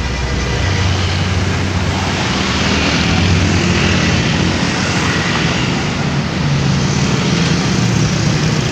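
Large diesel bus engine running with a steady low drone and road noise, its pitch stepping up slightly about a second in.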